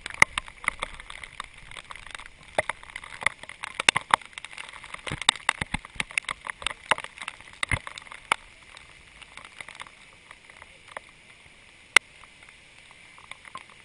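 Irregular sharp taps and clicks, thick for the first eight seconds or so and then thinning out, with one sharp click near the end, over a faint hiss.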